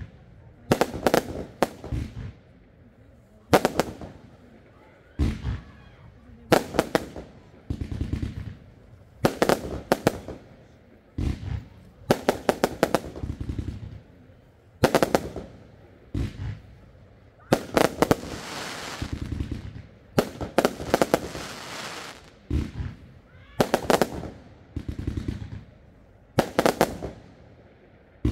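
Lesli Smoke Elephant fireworks battery firing shot after shot. Each shot is a cluster of sharp bangs and crackles, coming every second or so, with a longer run of dense crackling about two-thirds of the way in.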